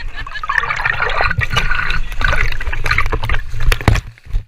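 Lake water splashing and sloshing right against a GoPro camera held at the surface, with many sharp clicks and pops of water striking the housing; it dies down near the end.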